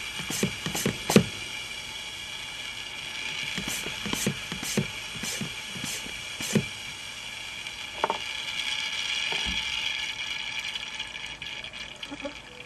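PELA 2000 vacuum oil extractor's hand pump worked in quick strokes, each stroke a sharp click: three, a pause, then about seven more. A steady hiss of air being sucked up the extraction tube runs underneath and goes on after the pumping stops, the sign that the oil is almost all drawn out of the engine.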